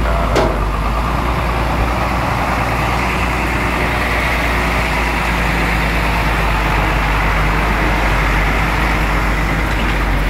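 Hino FM-series tanker truck's diesel engine running as the truck creeps past close by through shallow floodwater, with a short knock about half a second in.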